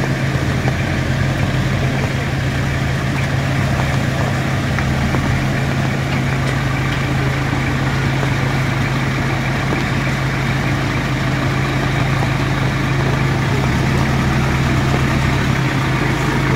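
A vehicle engine idling close by, a steady low hum that does not change, over an even hiss of noise.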